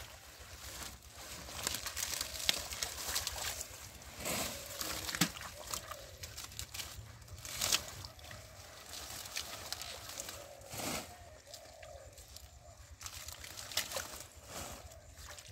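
Water hyacinth plants rustling and crackling as they are pulled up by hand, with splashing and sloshing in shallow muddy water. Irregular, with a few sharper snaps scattered through.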